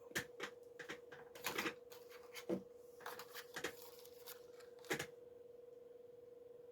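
Irregular light clicks and taps, about a dozen in the first five seconds and then none, over a faint steady hum.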